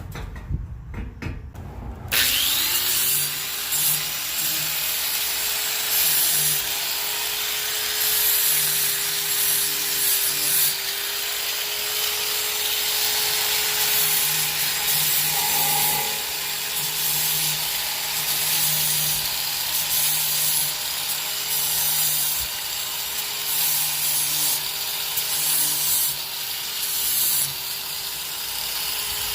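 Handheld power grinder starting up about two seconds in and running steadily against metal, grinding the snapped exhaust hanger ends clean for welding, its motor pitch dipping slightly as it is pressed in.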